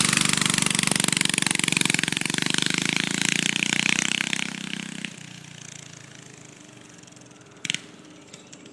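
Honda GX200 6.5 hp single-cylinder four-stroke engine on a Doodlebug minibike with a custom exhaust, running hard as the bike pulls away. The sound drops sharply about five seconds in, then carries on fainter as the bike moves off into the distance.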